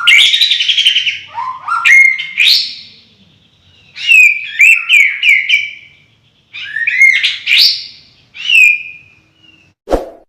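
A songbird singing loud, varied whistled phrases with quick rising and falling sweeps and trills, in four bursts separated by short pauses. A short knock comes near the end.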